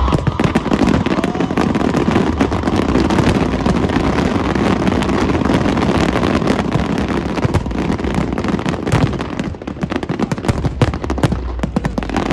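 Dense fireworks barrage: many shells bursting at once in a continuous rapid run of cracks and bangs. It eases briefly about nine seconds in, then builds up again.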